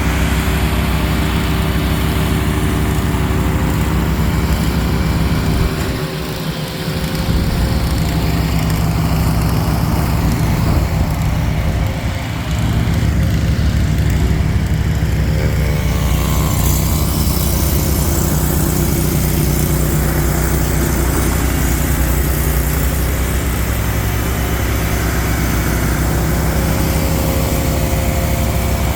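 Mahindra eMax 20 compact tractor's diesel engine running steadily while clearing snow with a Bercomac snowblower attachment. The sound dips briefly twice, about six and twelve seconds in.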